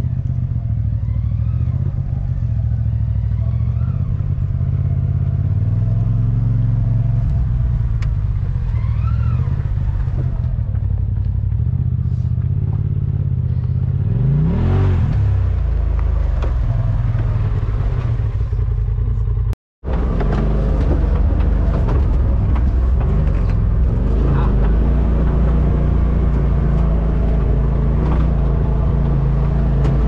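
Polaris Pro XP side-by-side's engine running under way on a trail, its revs rising and falling, with one sharp rev up and back down about halfway through. The sound cuts out for a moment about two-thirds of the way in, then the engine carries on.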